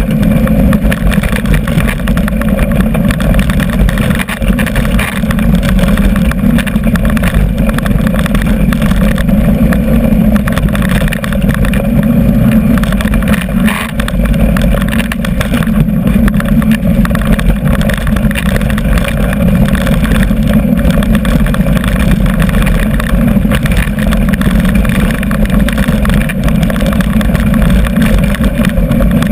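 Wind buffeting a GoPro microphone and a mountain bike's tyres rumbling and rattling over a rough dirt trail on a fast downhill run: a steady, loud rush of noise.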